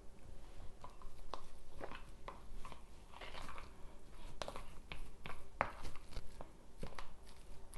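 Flaked tuna and mascarpone being mixed in a bowl by hand with a utensil: soft, wet squishing broken by irregular light clicks and scrapes of the utensil against the bowl.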